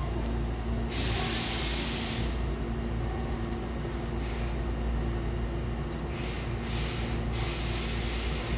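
Compressed-air hiss from a Hankyu 8000-series electric train, over a steady low hum. A strong burst starts about a second in and lasts over a second, a short puff comes around four seconds, and a longer hiss comes near the end.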